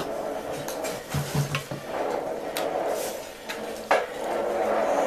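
Steel wheels of a sawmill carriage frame rolling and clanking on a steel track, a rumbling slide broken by several sharp metal knocks, the loudest about four seconds in.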